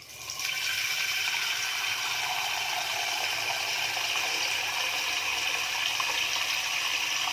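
Water running steadily from a tap, turned on at the start and cut off abruptly at the end.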